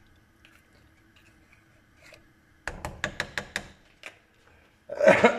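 A quick run of about seven sharp clicking taps from a kitchen utensil as tomato paste is added to the pot, then a louder, noisier burst near the end.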